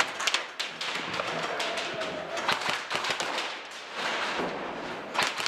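Airsoft guns firing during an indoor close-quarters firefight: many sharp, irregular pops and cracks in quick succession, with a fresh cluster near the end.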